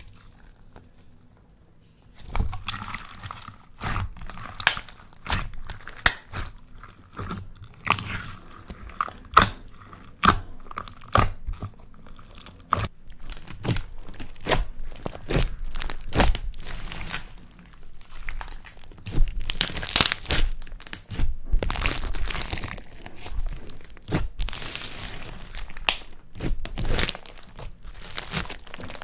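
Slime being squished and kneaded by hand: a dense run of sticky pops, clicks and crackles starting about two seconds in, with longer crinkly rustling stretches in the second half.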